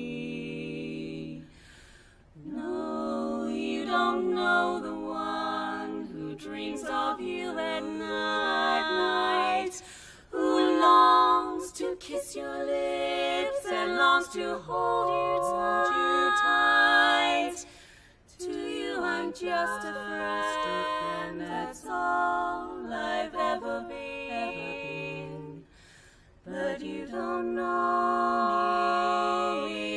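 Women's barbershop quartet singing a cappella in four-part close harmony: sustained chords sung in phrases, with short breaks between phrases about every eight seconds.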